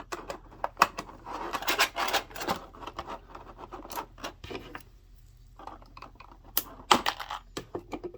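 Hard plastic action-figure accessories handled and pegged together: irregular clicks, taps and short scrapes, with the sharpest clicks about a second in and near the end.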